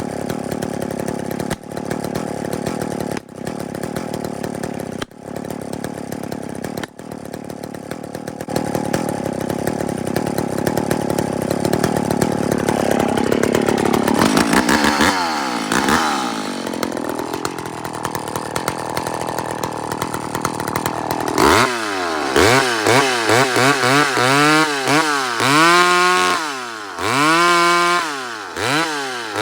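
Chainsaw running steadily under load for about half the time, with a few brief drops, as if cutting into the trunk. The engine then settles and is revved up and down repeatedly near the end.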